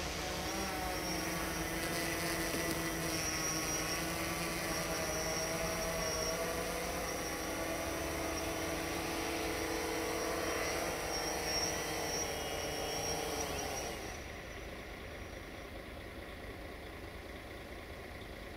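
Quadcopter drone's rotors buzzing as it hovers low, a steady multi-toned whine that wavers a little in pitch. About fourteen seconds in the buzz drops away as the drone sets down on the snow, leaving a fainter low hum.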